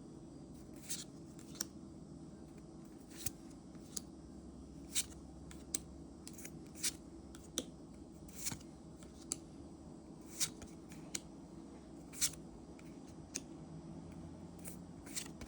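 Magic: The Gathering trading cards being flicked and slid past each other while a booster pack is looked through, giving short crisp snaps about once a second over a steady low hum.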